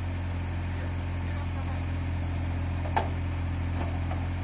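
An engine idling with a steady low hum, and one sharp click about three seconds in.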